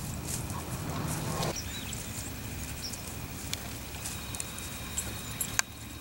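Large flock of migratory birds in flight: scattered faint chirps and ticks over a steady hiss, with one sharp click near the end.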